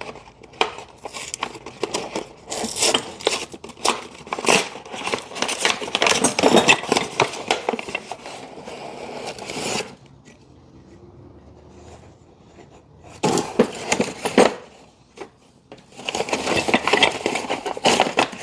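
Metal awning-bracket parts being handled: irregular clinks, knocks and scrapes with some rustling, thinning out for a few seconds just past the middle before picking up again.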